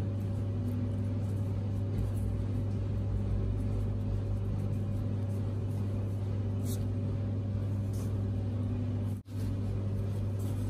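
Steady low machine hum, with a few faint light ticks from handling the dough; the sound drops out briefly about nine seconds in.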